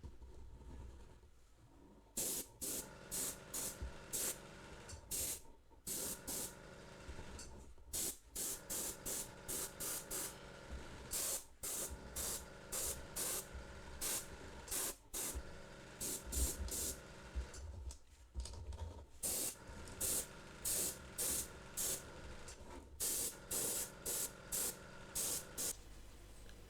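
Airbrush spraying black paint in many short hissing bursts, roughly one a second with brief pauses between runs, over a steady low hum.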